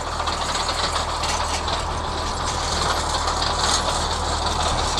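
Tractor engine running steadily while mowing hay: a constant low hum under a broad, even machinery noise, with no change in pace.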